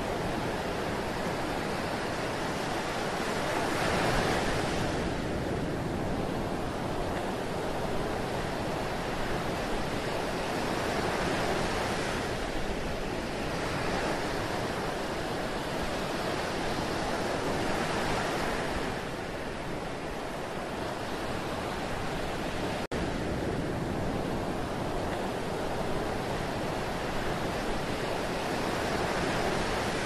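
Continuous rush of water, a steady hiss that swells and eases every six or seven seconds, with a momentary break a little past two-thirds of the way through.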